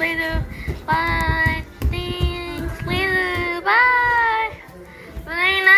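A high-pitched voice singing a string of held notes with short breaks between them, pausing briefly near the end before the next note starts.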